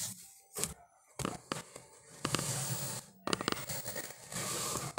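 Handling noise: several soft clicks and rubbing as the smartwatch is held and turned in the fingers, with a few short stretches of hiss.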